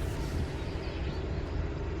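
Steady road and wind noise of a vehicle driving, with a hiss that sweeps down in pitch near the start, as of a vehicle passing.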